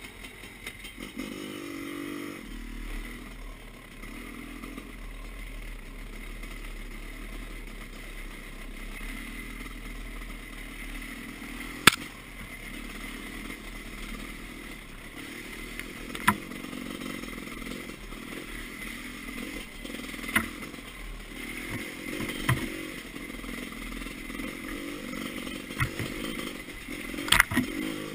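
Off-road motorcycle engine running at low trail speed, heard from the bike itself, with sharp knocks and clatter every few seconds as it rides over the ruts of a rough dirt track; the loudest knock comes about twelve seconds in.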